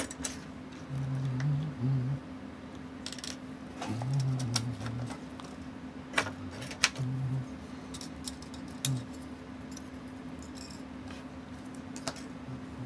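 Scattered light metallic clicks and taps of small steel tools and parts being handled while a mechanical watch movement is worked on, over a faint steady hum.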